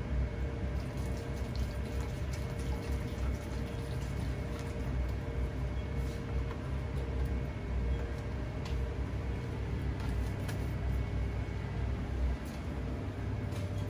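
Liquid pouring and sloshing in a plastic waste container, over a steady low hum, with a few clicks and knocks as the container is handled.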